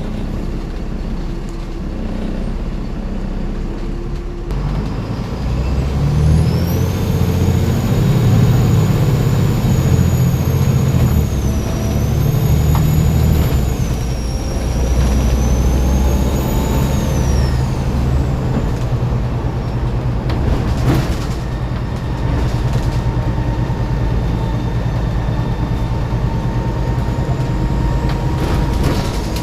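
Volvo B7TL bus's six-cylinder turbodiesel pulling, with a high turbo whistle. The whistle rises about six seconds in, holds with a couple of brief dips, and fades away about halfway through. A short sharp noise comes a few seconds later while the engine runs on.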